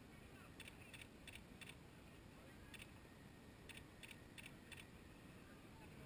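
Near silence: a faint low hiss with scattered groups of short, faint, high ticks.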